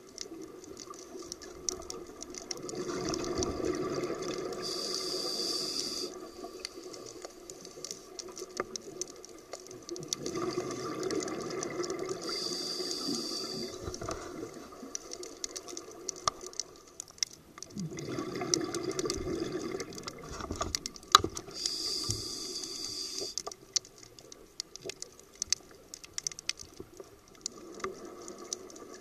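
Scuba regulator breathing underwater: three bursts of exhaled bubbles about eight seconds apart, each ending with a short hiss, with scattered crackles and clicks between them.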